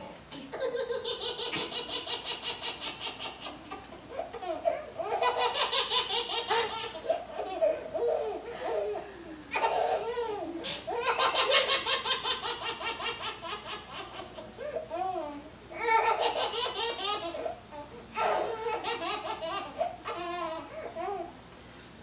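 Baby laughing hard in long runs of quick, rhythmic belly-laugh pulses, several runs with short breaks between. The laughter is set off by his mother's sneezes.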